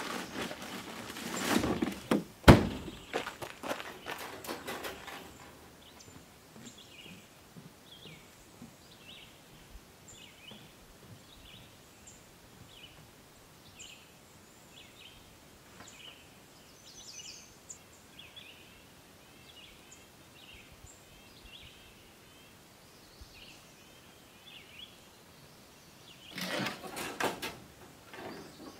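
Rustling and knocking of gear being handled at a pickup tailgate, with one sharp thunk about two and a half seconds in. Then a quiet stretch where a small bird chirps over and over, and more handling noise near the end.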